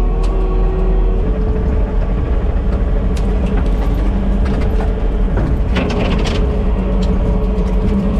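Diesel engine of a Kubota SVL65-2 compact track loader running under load, with scattered sharp cracks and clatter about three seconds in and again around six seconds in.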